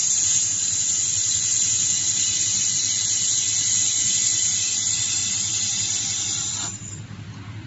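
Handheld laser welding gun firing: a steady, high hiss with a faint whistle that cuts off sharply near the end.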